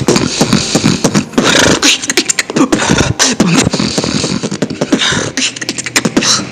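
Human beatboxing: a fast beat of sharp mouth clicks and hissing snare and hi-hat sounds woven with the snore bass, a bass made by snoring on the in-breath, breaking off near the end.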